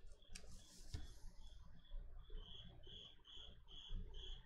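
Cricket chirping: a steady run of short, high chirps, about two to three a second, becoming clearer after about two seconds. Soft knocks from a plastic card toploader being handled sound underneath.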